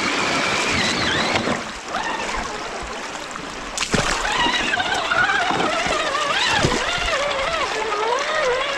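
Water splashing and churning as an RC crawler truck drives through a shallow rocky creek, with a sharp hit about four seconds in. From then on the truck's electric motor whines, rising and falling in pitch as the throttle changes while it climbs out of the water.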